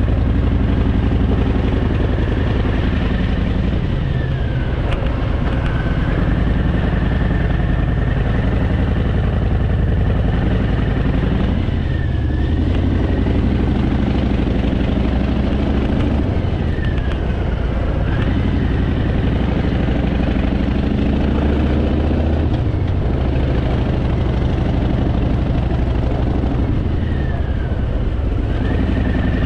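Harley-Davidson Fat Boy's V-twin engine running under way, its pitch dropping and rising again several times as the rider eases off and opens the throttle.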